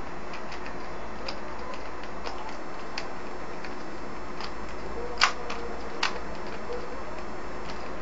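3x3 Rubik's Cube being turned rapidly by hand in a speedsolve: a run of quick, irregular plastic clicks as the layers snap round, with one louder clack a little past the middle and another about a second later, over a steady hiss.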